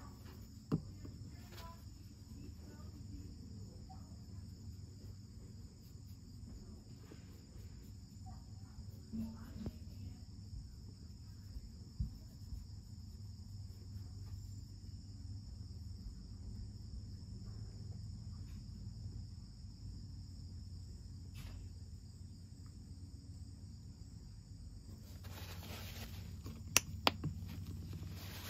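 Quiet fingertip rubbing of acrylic paint across a glass-inlaid ceramic coaster, over a steady high-pitched background whine and low hum. Near the end a cloth wipes across the surface with a rustle and a couple of sharp clicks.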